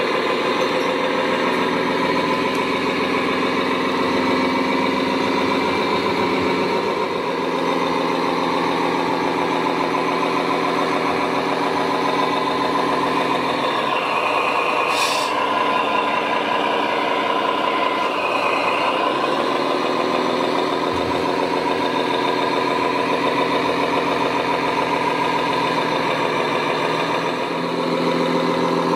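Remote-controlled construction machines running with a steady, truck-like engine drone. The note shifts for a few seconds around the middle, where there is a short hiss.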